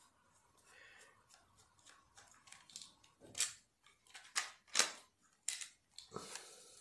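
Screwdriver working the screws of a Bosch cordless drill battery pack's plastic housing: a run of small clicks and scrapes of metal on plastic, with several louder scraping strokes in the second half as the screws are backed out.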